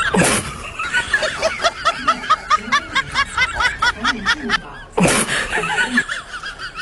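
A person laughing in rapid repeated snickers, with two short hiss-like bursts, one at the start and one about five seconds in.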